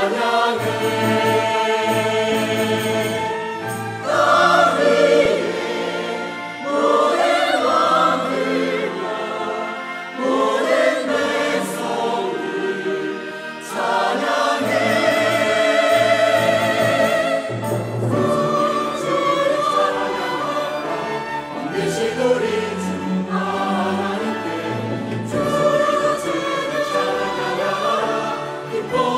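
Mixed church choir singing a hymn anthem in Korean, in full voice, accompanied by a small orchestra with violins and clarinet.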